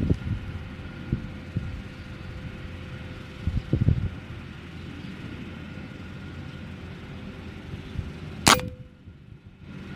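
A single sharp air-rifle shot near the end, short and loud, over steady low background noise.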